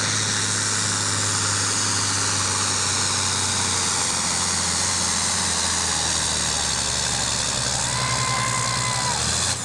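John Deere diesel farm tractor running flat out under heavy load while pulling a weight-transfer sled: a loud, steady engine drone. The engine note sags a little in the last few seconds as the load builds, and the sound cuts off abruptly at the end.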